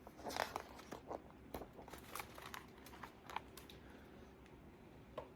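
Faint paper crinkling and clicking as the pages of a picture book are turned and handled: a cluster of short rustles over the first three seconds or so, then one more click near the end.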